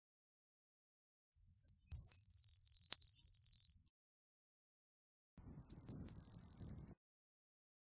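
Eurasian blue tit singing: two song phrases, each a few high, thin notes stepping down into a fast, even trill.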